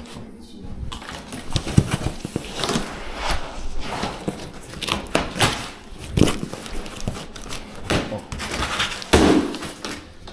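Large strapped cardboard boxes being handled and shifted by hand: irregular scraping and rubbing of cardboard with sharp knocks and bumps.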